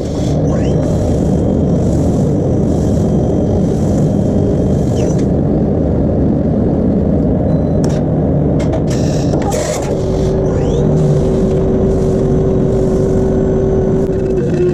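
Mori Seiki CNC machine running while milling an aluminium bracket: a loud, steady rumble, with a faint pulsing hiss about twice a second early on, a few sharp clicks, and a steady tone that comes in about ten seconds in.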